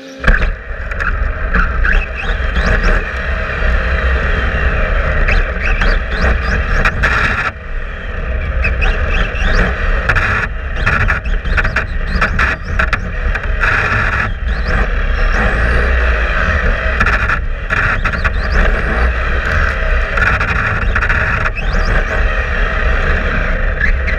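Onboard sound of a 1/10-scale electric RC touring car at speed, heard from a camera fixed to its chassis: a heavy rumble of vibration and tyre noise with a whine that rises and falls with the throttle. It starts suddenly as the car sets off and drops briefly several times when the throttle is lifted.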